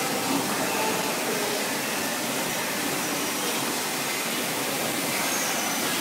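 Steady factory-floor background noise: an even hiss with a few faint passing tones and no single sound standing out.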